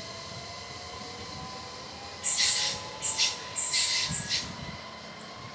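Alstom Coradia Stream ('Pop') ETR 103 electric train pulling away, its traction motors giving a whine that rises steadily in pitch as it accelerates. A few short, loud hissing noises come between about two and four and a half seconds in.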